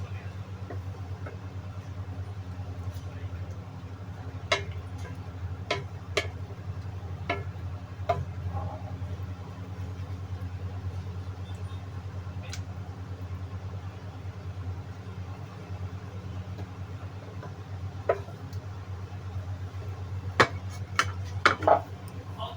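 A steady low motor hum with scattered sharp clicks and knocks, several close together near the end.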